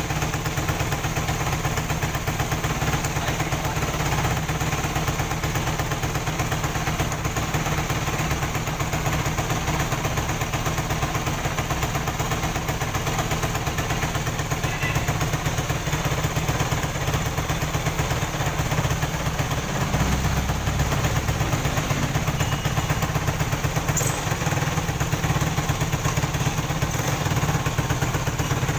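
Yamaha 450R ATV engine idling steadily. It runs fairly well now that its carburetor, clogged with dirt, has been cleaned out.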